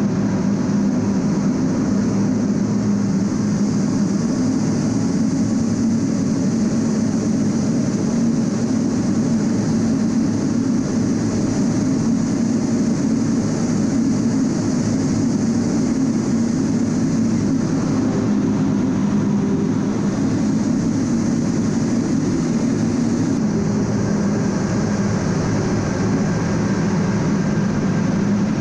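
Steady, loud drone of an A-10 Thunderbolt II's twin TF34 turbofan engines and rushing air, heard from inside the cockpit in flight; the tone shifts slightly about 23 seconds in.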